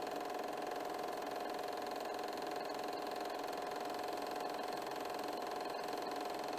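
Film projector running: a steady mechanical whirr with a constant hum.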